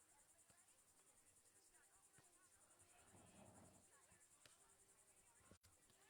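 Near silence: a faint, steady, high-pitched rapid pulsing like insects chirring, with a soft swell of muffled noise about three seconds in and a single faint click near the end.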